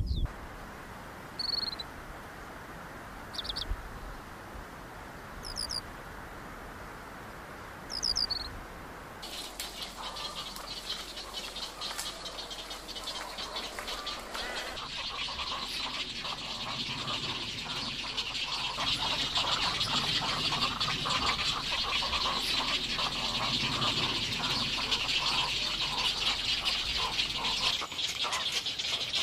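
Four short, high chirping calls about two seconds apart over a faint steady background, from skylarks in an open field. About nine seconds in, a dense, continuous chorus of rapid ticking and chattering calls from an egret nesting colony, with adults raising chicks at the nests.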